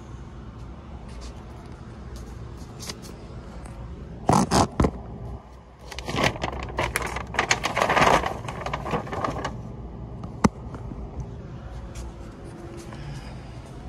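Cardboard box handled on a checkout counter: three loud knocks about four seconds in, then a few seconds of scraping and crackling, and one sharp click near the end.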